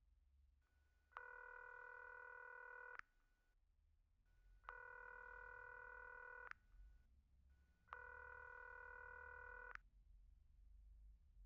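Ringing tone of an outgoing mobile phone call: three long electronic rings of about two seconds each, with pauses of about a second and a half between them.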